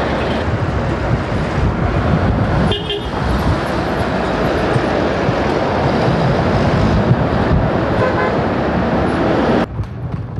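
Loud road traffic: vehicle engines with a couple of short horn toots. The noise drops off abruptly near the end.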